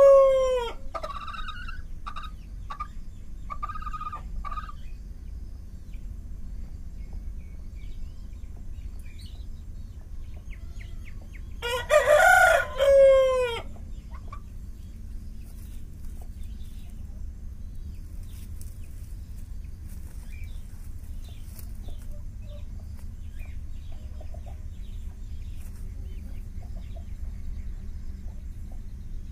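Chicken calls: a rooster crowing, with one crow trailing off at the start and one loud two-part crow partway through, and a few short clucking calls in the first few seconds. A steady low hum runs underneath.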